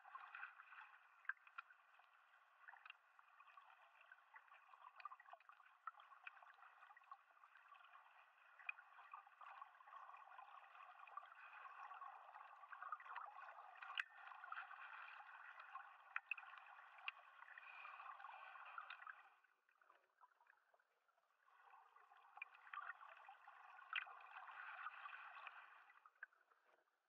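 Faint underwater ambience picked up by a submerged camera: a quiet hiss with scattered clicks and crackles. It drops out briefly about twenty seconds in.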